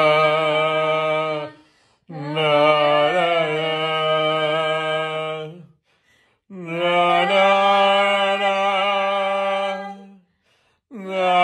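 A person's voice chanting long, held notes, three to four of them lasting a few seconds each with short breaks between, the pitch nearly steady.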